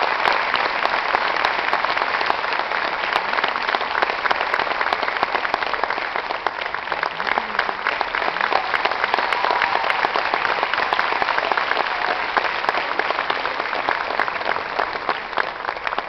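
Audience applauding: a dense, steady round of clapping.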